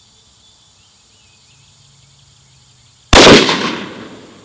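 A single shot from a Daniel Defense DDM4v11 AR-15-style carbine firing a .223 Remington 55-grain round, about three seconds in, with a ringing tail that fades over about a second.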